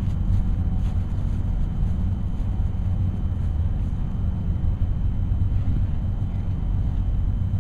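Wind buffeting the camera microphone outdoors, a steady low rumble with no other distinct sound.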